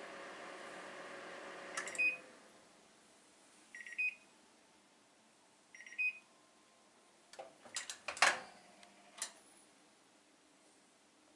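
Microwave oven running with a steady hum that cuts off with a click about two seconds in. Three short high beeps follow, about two seconds apart, signalling the end of the heating cycle. A few sharp clicks and a knock come near the end.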